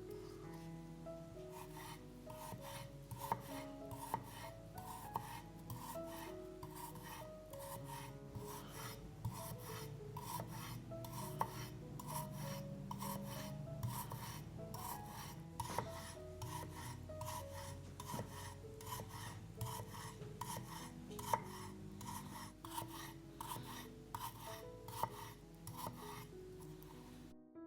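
Food being rubbed across a grater in quick, repeated rasping strokes, over soft piano background music; the strokes stop just before the end.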